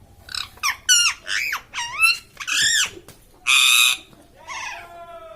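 Parrot calling: a quick run of short whistled calls gliding up and down in pitch, with one loud harsh squawk about three and a half seconds in.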